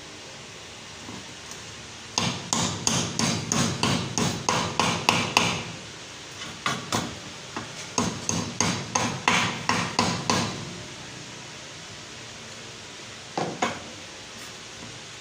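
A hammer tapping rapidly at a pulley bearing, about four blows a second, in two runs of several seconds each, then two last taps near the end.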